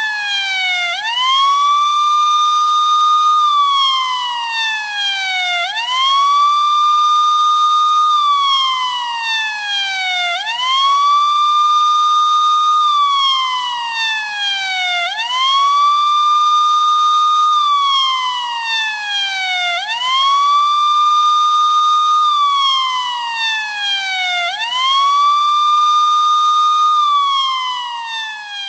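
Siren-style safety alarm sound effect wailing in a repeating cycle: the pitch sweeps quickly up, holds high for a couple of seconds, then slides slowly back down, about every four to five seconds, like a police siren.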